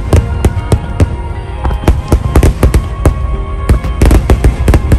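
Aerial fireworks bursting in rapid succession: sharp bangs several times a second over a deep booming rumble, with music playing underneath.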